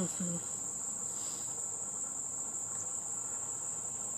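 A steady, high-pitched, unbroken trill from a chorus of insects, with no pause or change in rhythm.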